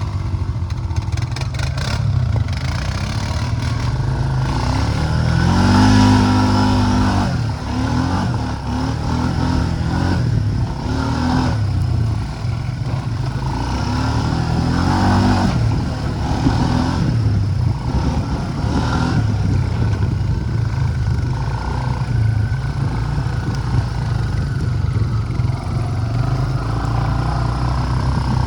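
Four-wheeler (ATV) engine running under way, its pitch rising and falling as the throttle is worked, with stronger revs a few times.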